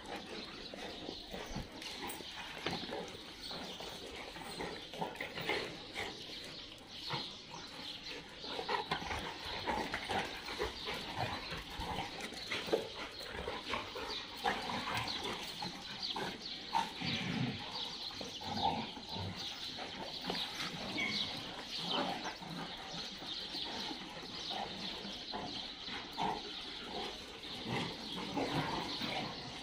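Dogs barking on and off in many short, irregular barks.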